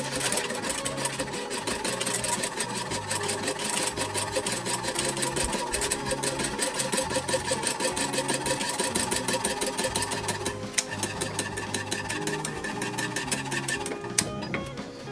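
Wire whisk beating fast against the sides and bottom of a metal saucepan, a rapid even clatter of clicks, as a chocolate custard filling is whisked on the stove. The clicking thins out over the last few seconds. Background music with a bass line plays under it.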